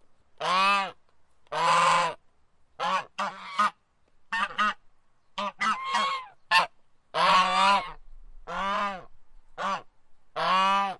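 Domestic goose honking over and over: a dozen or so loud, harsh honks, some drawn out and some short and quick in pairs.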